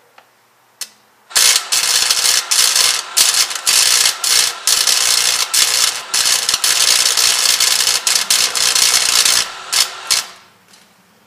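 Wire-feed welder laying a bead on a truck exhaust: a loud, dense crackling sizzle that starts about a second and a half in, breaks briefly a few times, and stops near the end.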